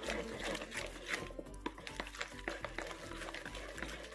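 Background music, with small taps and clicks scattered over it.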